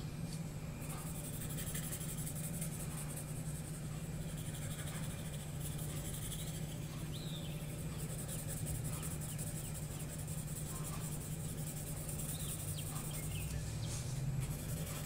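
Graphite pencil scratching on sketchbook paper in scattered short strokes, scribbling in the fur. It is faint under a steady low hum and hiss.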